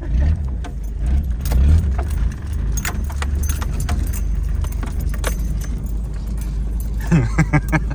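A vehicle driving over rough ground, heard from inside the cab: a steady low engine and road rumble with frequent light rattling and clicking throughout.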